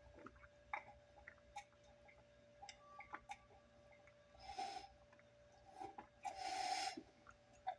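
Faint swallowing gulps and small mouth clicks of a person taking repeated sips of water, with two short breaths, one about four and a half seconds in and one longer one at about six and a half seconds.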